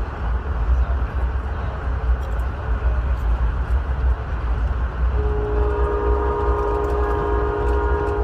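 Amtrak Vermonter passenger train rolling along the track, a steady rumble heard from inside the coach. About five seconds in, the locomotive's horn sounds one long held chord that lasts to the end.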